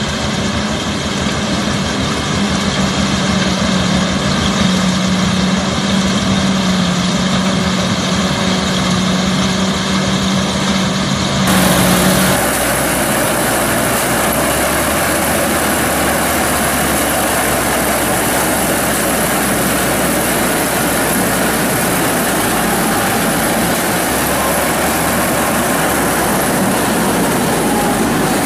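Self-propelled corn harvester running in a maize field: a steady engine drone with a low hum, then, after a cut about twelve seconds in, a denser, even rush of engine and harvesting-header noise from close by.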